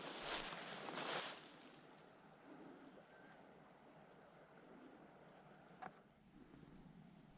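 Insects trilling in one steady high-pitched tone, with two short bursts of rustling noise in the first second or so.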